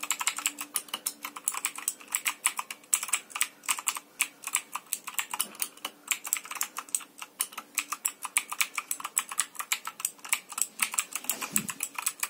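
Typing on a Motospeed CK61 60% mechanical keyboard with blue switches: a continuous run of sharp, clicky keystrokes, several a second.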